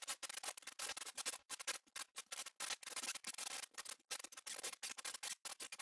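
Dense, irregular crackling made of many small snaps each second, with no tone or voice in it. It is a crackle sound effect laid under an animated outro of sparkles.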